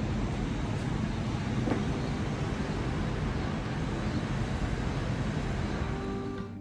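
Steady hum of distant city traffic.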